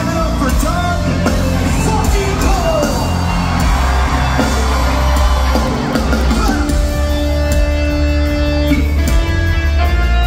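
Live hard rock band playing loud, with distorted electric guitars and drums, heard through a phone recording from the crowd. Bending notes give way to long held notes a little past the middle.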